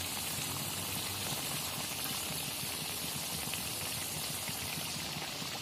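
Sel roti ring deep-frying in a wok of hot oil: a steady sizzle and bubbling with many fine crackles.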